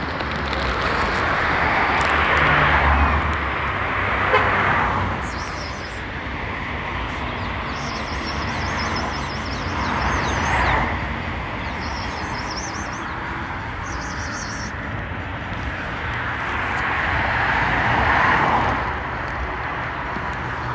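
Street traffic: vehicles passing one after another, each swelling and fading over a couple of seconds, over a steady low rumble.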